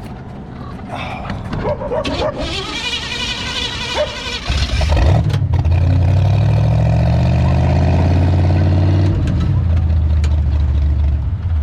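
Rat rod's big-cam engine catching about four and a half seconds in after a whining stretch, then running with a steady low drone. It is the overheated car being refired to drive on after a coolant hose burst.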